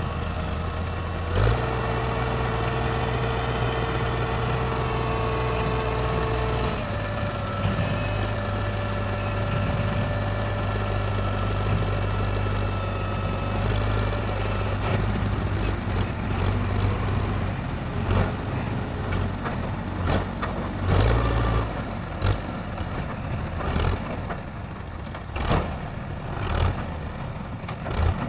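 Diesel tractor engine running under load. Its pitch steps up about a second and a half in, and a steady whine sits over it while the trolley's hydraulic tipper raises the bed. Through the second half, irregular knocks and surges rise over the engine as it strains to pull the trolley out of the mud, putting out black smoke.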